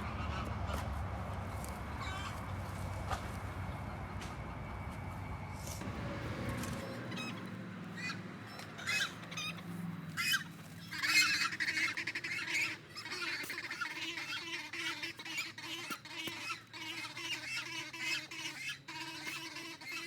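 Farm poultry calling: repeated squawks and honks, loudest about halfway through. Before that, a steady low rumble stops abruptly about seven seconds in.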